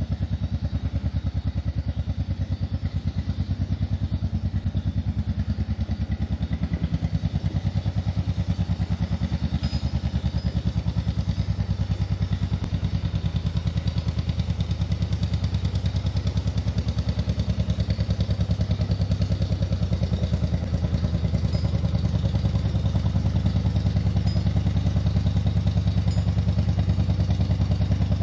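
1956 John Deere 420 tractor's two-cylinder engine running steadily, its even firing beats clearly separate. It gets a little louder about two-thirds of the way through.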